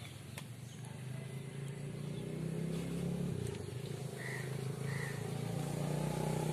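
A motor vehicle engine running steadily, its hum growing gradually louder. Two faint short chirps come about two-thirds of the way in.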